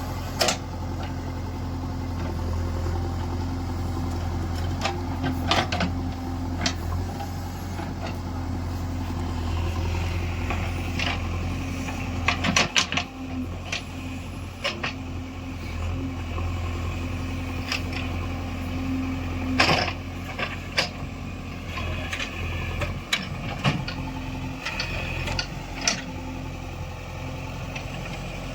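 Diesel engine of a JCB 3DX backhoe loader running steadily at work, with scattered sharp knocks and clanks over it, several close together about halfway through.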